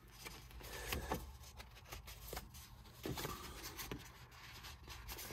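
Scored white card being handled and folded by hand: soft rustling of the card with a few light clicks and taps scattered through.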